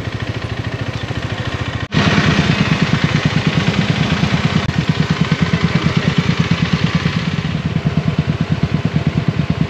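Motorcycle engine idling with an even, fast low pulse. It drops out for an instant about two seconds in, then runs on louder.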